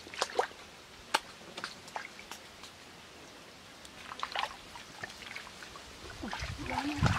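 Shallow muddy water splashing and dripping under wading feet and hands: scattered small splashes and drips, quiet in the middle, then heavier sloshing that grows louder near the end.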